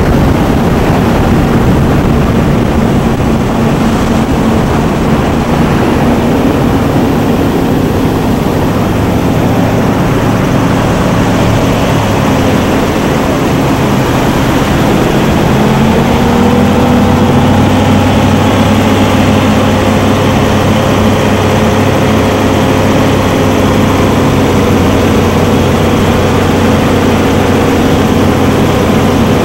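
Powerboat engines running flat out, a loud steady drone. About halfway through, the pitch rises and then holds at a higher note.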